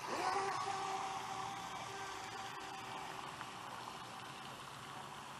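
Brushless electric motor of a Voltanex Vector S RC boat whining as it throttles up and runs away across the water: a quick rising whine, then a steady high tone that slowly fades as the boat gets farther off.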